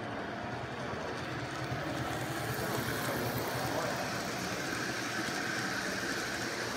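N-scale model Sounder commuter train running past on the layout track: a steady rolling noise of small wheels and motor that grows louder about two and a half seconds in as the train nears.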